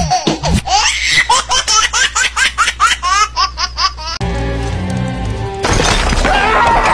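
Laughter sound effect: quick, rhythmic 'ha-ha' pulses, about five a second. About four seconds in it cuts off and gives way to steady held music tones. A new, noisier laughing burst starts near the end.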